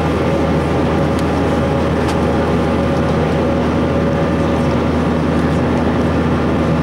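Steady cabin drone of an Airbus A321 climbing out, heard inside the cabin by the wing: a constant rush of air and engine noise with a few steady humming tones.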